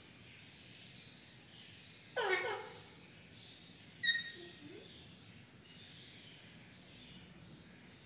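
Rose-ringed parakeet calling: a short speech-like call about two seconds in, then a brief sharp chirp about four seconds in.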